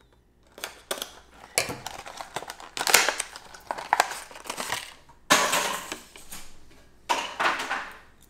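Plastic blister packaging of a fishing lure being pried and torn open, crackling and crinkling in several irregular bursts, the loudest near the middle.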